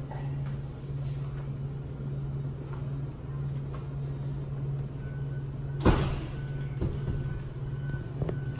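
Steady low machine hum with a single sharp knock about six seconds in and a couple of lighter knocks after it.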